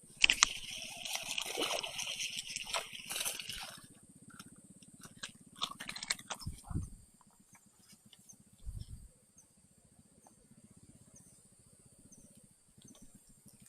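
Water splashing and sloshing, most likely a hooked snakehead thrashing at the surface: a sharp splash right at the start, about three and a half seconds of continuous splashing, then a few shorter splashes around five to six seconds in. Two dull low thumps follow, then only quiet outdoor background.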